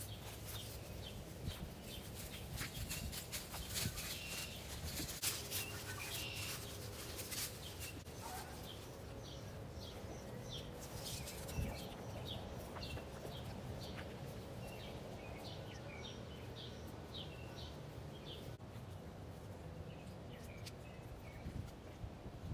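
Small songbird chirping over and over, many short high chirps in series, most steadily through the middle of the stretch. Scattered rustling and clicks sound in the first half, over a low steady rumble.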